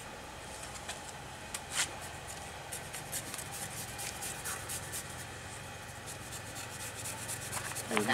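Scraping on a slaughtered pig's carcass: a few separate sharp scrapes, then from about three seconds in a rapid run of rasping strokes, several a second.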